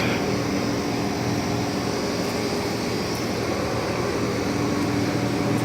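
Trane XB13 5-ton central air conditioner's outdoor unit running steadily just after startup: the even hum of its scroll compressor under the steady rush of the condenser fan.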